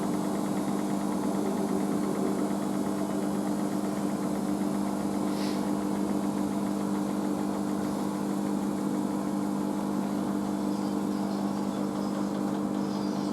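Washing machine humming steadily at the end of its cycle, an even low electrical-motor hum with no change in pitch. A faint brief tick about five seconds in.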